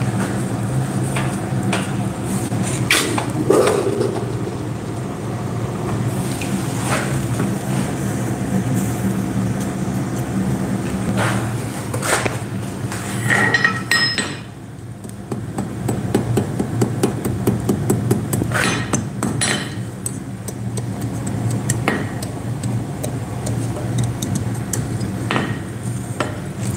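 Hand hammer striking hot iron on an anvil, irregular, widely spaced blows and lighter taps as a small piece is shaped, over a steady low hum.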